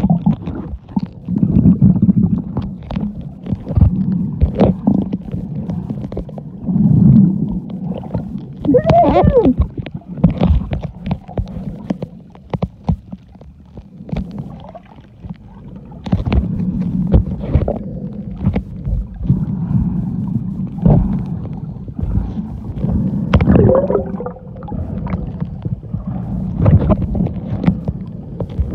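Muffled underwater sound picked up by a phone microphone held below the sea surface: water sloshing and gurgling against the phone, with irregular low rumbling and scattered knocks.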